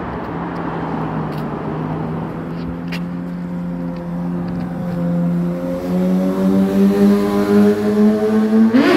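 Kawasaki Ninja sport motorcycle engine approaching at a steady note that grows louder and climbs slowly in pitch, then revs up sharply just at the end, heard under a road bridge.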